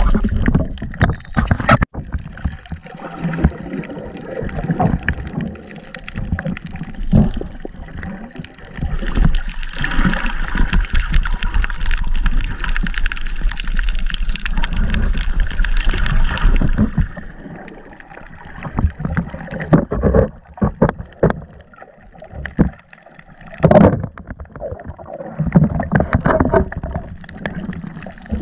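Muffled underwater noise heard through a camera's waterproof housing: water rushing and gurgling, broken by many irregular knocks and bumps.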